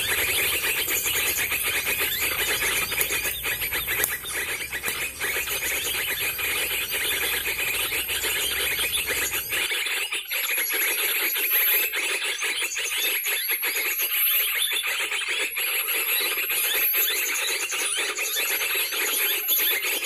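Bird-trapping lure call played from a small speaker: continuous, dense bird twittering. A low rumble underneath stops about halfway through.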